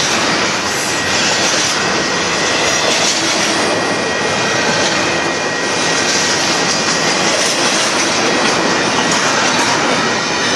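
Union Pacific container train's cars rolling past, a loud steady rumble of steel wheels on rail with a thin, steady high tone over it.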